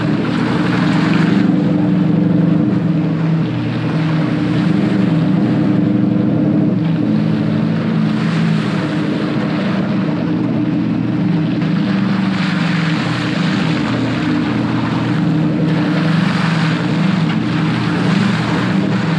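Turbocharged Hemi V8 in a Ford F-100 pickup running under load on a rough trail, its pitch rising and falling as the throttle comes on and off. Bursts of rushing noise come every few seconds.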